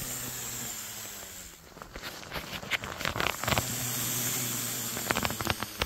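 Air rushing out through the valve of an inflatable sleeping pad as it is rolled up and pressed flat: a steady hiss with a low buzzing tone, broken by crinkling rustles of the pad's fabric in the middle and again near the end.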